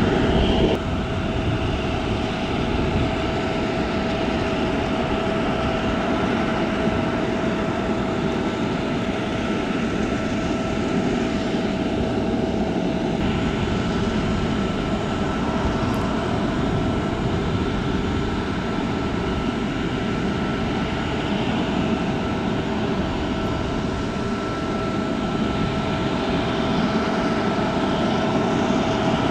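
Steady machinery drone with a constant high whine over a low rumble; a second, higher whine joins about halfway through.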